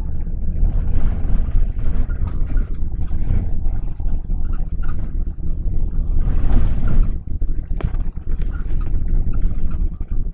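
Moving car heard from inside: a steady low road and engine rumble with wind noise, and a louder rush about six and a half seconds in.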